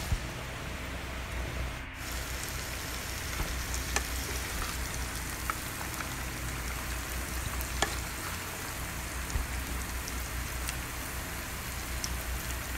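Spiced oil frying in a pan with chunks of green mango, sizzling steadily with scattered small pops.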